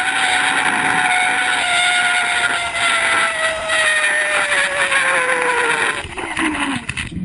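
Zip line trolley pulley running along the steel cable: a loud whine over a rushing hiss, its pitch falling steadily as the rider slows on the approach to the landing platform, then fading out near the end.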